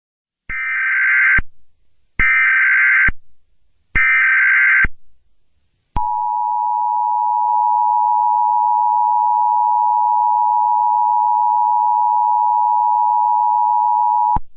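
Emergency Alert System header: three short bursts of screeching SAME digital data, about a second each with short gaps between them. The steady two-tone EAS attention signal follows, held for about eight seconds before it cuts off near the end.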